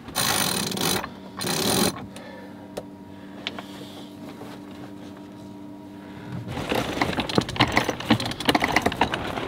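Two short bursts of rushing noise near the start, then a sailboat's sheet winch ratcheting with rapid, dense clicking over the last three seconds as a sail is trimmed.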